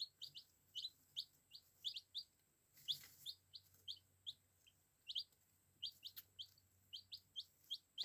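Baby chicks peeping: a run of short, high, rising cheeps, several a second and irregularly spaced, from a few chicks.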